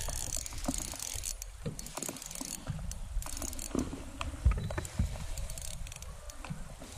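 Piscifun Flame 2000 spinning reel being cranked in a slow, steady retrieve: mechanical reel noise with many irregular clicks and knocks from the handle and the hand working it close to the microphone.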